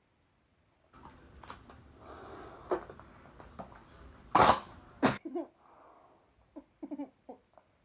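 A person coughing: two loud, sharp coughs about four and a half and five seconds in, over faint handling and rustling noise, with a few small throaty sounds afterwards.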